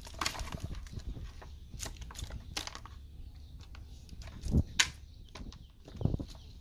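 A bamboo fish trap being shaken and knocked over a plastic basin to tip out the gobies and shrimp inside. There are scattered clicks and taps, two loud knocks about halfway through, and another knock near the end.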